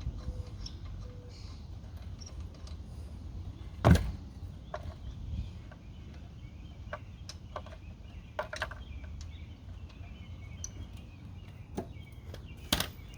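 Scattered light clicks and clinks of a wheel and its lug nuts being handled and fitted, with two sharper knocks, one about four seconds in and one near the end, over steady outdoor background noise.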